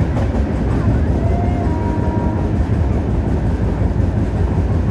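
Running noise inside an LHB passenger coach as the train accelerates: a steady low rumble of wheels on rail.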